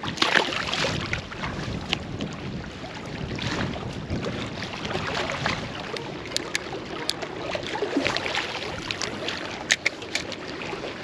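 Wind buffeting the microphone over choppy water lapping at a rocky bank. There is a splash right at the start as a released largemouth bass drops into the water. A spinning reel is then worked, with scattered sharp clicks, a few loud ones near the end.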